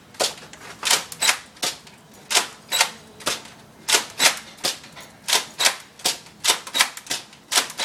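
Nerf blaster clicking, a fast, even series of sharp plastic clicks at about three a second.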